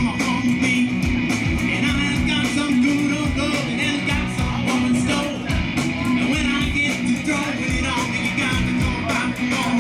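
Live rock band playing through a PA: electric guitars, bass and drums with a steady beat, and a singer's voice over them.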